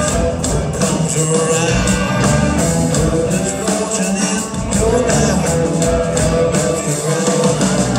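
Live electric rock band playing. A Firebird-style electric guitar leads over bass and drums, with a man singing.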